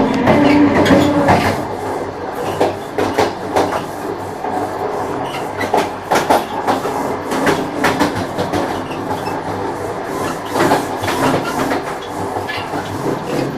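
Battery-powered toy locomotive running along plastic toy rails, its wheels and body giving an irregular clicking rattle.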